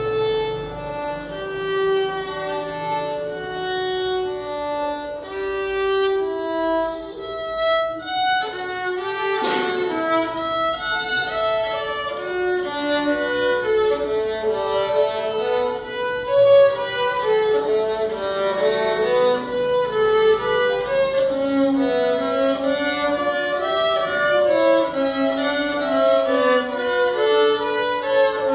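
Two violins played together, a melody in long held notes at first and quicker notes from about twelve seconds in. A single sharp knock sounds about nine seconds in.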